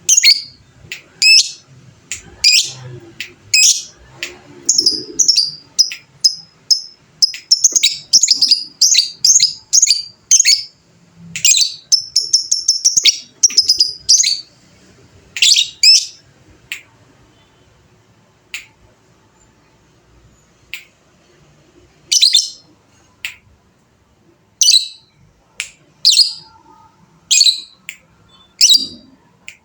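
Lovebird calling: shrill, high-pitched chirps in a fast chattering run through the first half, then single calls spaced a second or more apart, with a few quiet seconds past the middle.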